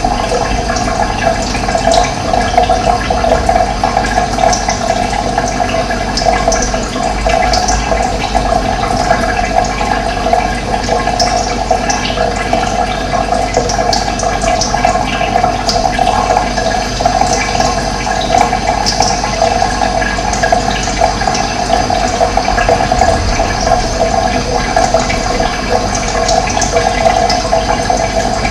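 Running water flowing steadily, a continuous even rushing.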